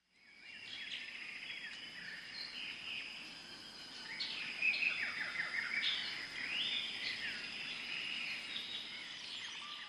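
Small birds chirping and twittering in a chorus of many short calls, busiest around the middle, over a steady high-pitched tone and light outdoor background noise.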